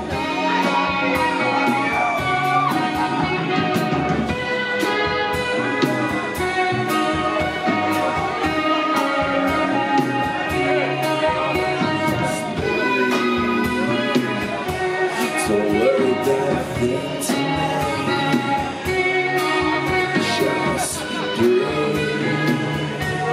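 A rock band playing live: electric guitar, bass guitar and a drum kit with steady beats, and a male lead singer.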